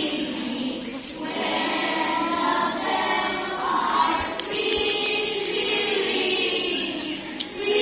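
A group of young voices singing a song together, choir-like, with short breaks between phrases.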